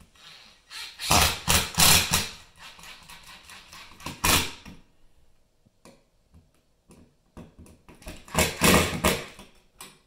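Cordless power driver running screws through a ceiling fan's metal mounting bracket into the electrical box, in three spells: two of about a second each, near the start and near the end, and a short one about four seconds in.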